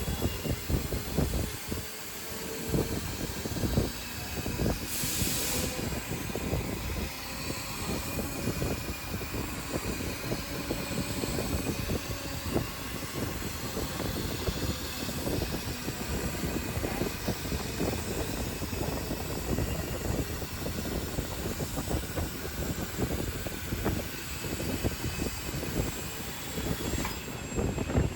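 3000 W CNC fiber laser cutting machine cutting sheet metal: steady machine noise with dense rapid crackling, faint whines that drift in pitch as the cutting head moves, and a brief hiss about five seconds in.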